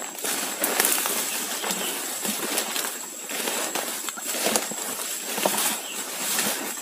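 Footsteps and the rustling and crackling of ferns and leafy undergrowth as people push through dense vegetation on foot, an uneven swishing with scattered snaps.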